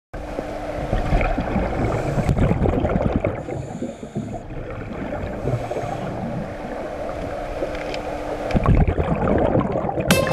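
Muffled underwater gurgling and bubbling from scuba divers' exhaled breath, heard through an underwater camera, with a faint steady hum at times. Electronic music starts near the end.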